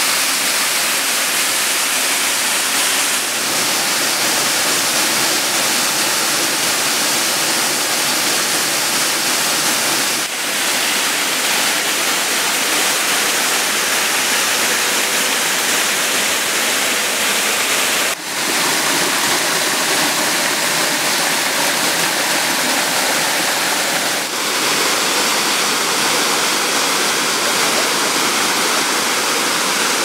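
Waterfall pouring over rock into a pool: a steady, loud rush of falling water, dipping briefly a few times.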